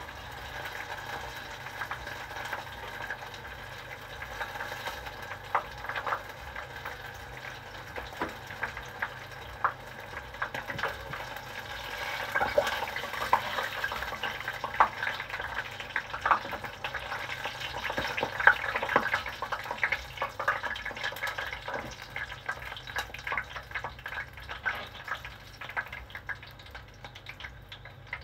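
Karaage (Japanese fried chicken) deep-frying in hot oil: steady sizzling with many small crackles, growing louder and busier about halfway through.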